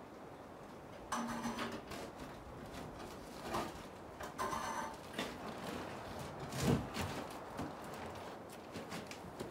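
Faint, irregular scraping, creaking and knocking of wood and metal being shifted about, with a few short squeaks about a second in and near the middle.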